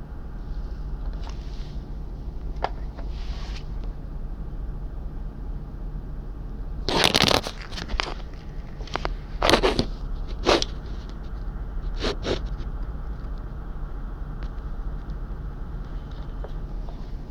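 Packaging and a small device being handled: short bursts of rustling and scraping with a few clicks, the loudest about seven seconds in and more around ten and twelve seconds, over a steady low hum.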